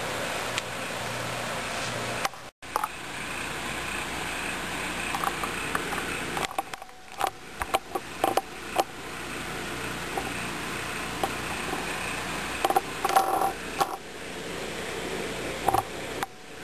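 A steady hiss with scattered small clicks and light knocks, in clusters from about six and a half to nine seconds, again around thirteen seconds and near the end.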